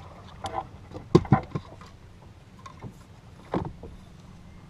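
A few short knocks and splashy thumps on a small fishing boat, a cluster just after a second in and another near three and a half seconds, over a low steady hum.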